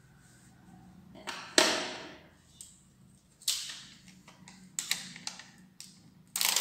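A few short rustles and scrapes of paper craft materials being handled, each sharp at the start and dying away quickly; the loudest is about one and a half seconds in.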